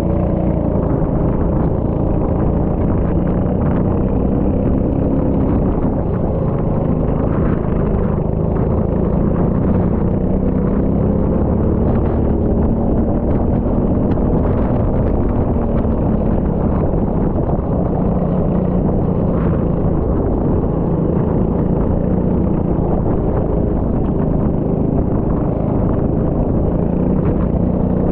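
Rental go-kart engine running continuously under throttle, its note rising and falling gently as the kart laps.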